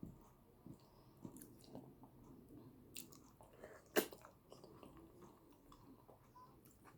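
Close-miked, faint chewing and wet mouth sounds of someone eating yam with eggplant sauce, with scattered small clicks and one sharp louder click about four seconds in.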